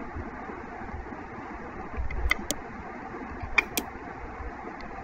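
Computer mouse clicked twice in quick succession, then again about a second later: two double-clicks over a steady background hum.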